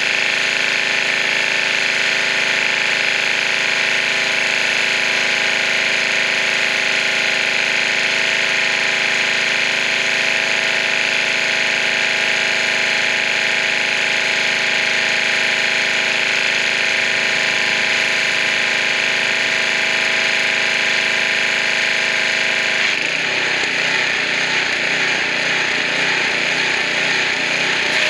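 Pressure washer running steadily: a machine drone under the hiss of the water jet. About 23 seconds in, the sound turns rougher and pulsing.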